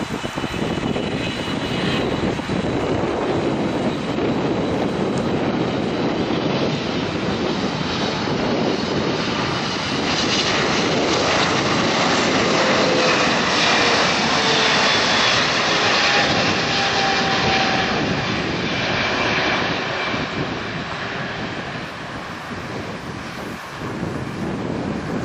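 Boeing 777-300ER's twin GE90 turbofans at approach power as the airliner passes close on final. The engine roar with its fan whine grows to its loudest about halfway through, a whine falls in pitch as it goes by, then it fades toward touchdown.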